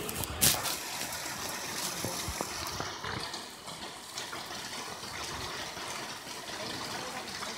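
Steady rushing of a mountain stream, with a sharp knock of a finger handling the phone about half a second in.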